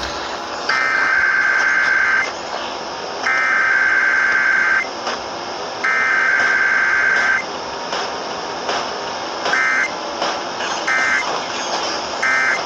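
Emergency Alert System SAME digital data bursts for a Required Weekly Test: three long warbling bursts of header code, each about a second and a half long, then near the end three short end-of-message bursts about a second apart, over a steady broadcast hiss.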